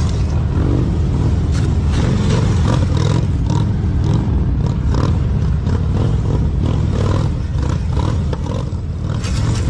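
Large police touring motorcycle's engine running at low speed with a steady low rumble as it is ridden slowly through tight turns, with scattered clicks over it.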